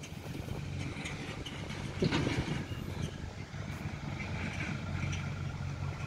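Diesel engines of a backhoe loader and a tractor running steadily at a distance, a low even hum, with a brief thump about two seconds in.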